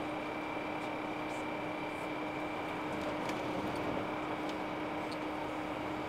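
Steady road noise heard inside a moving vehicle's cabin at highway speed, with a constant hum under it.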